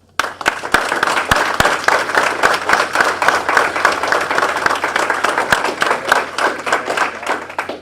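Audience clapping and applauding for an award winner, starting abruptly just after the name is read and dying away near the end.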